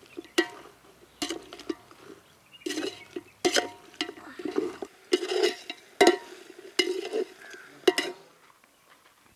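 Metal ladle stirring chicken pieces in a steel cooking pot, scraping and knocking against the pot in an irregular series of clattering strokes, every half second to a second.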